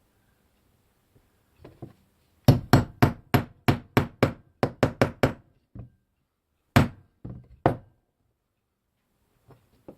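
Hammer blows on wood: a quick run of about a dozen sharp strikes at roughly four a second, then two more single blows, with a couple of softer knocks just before.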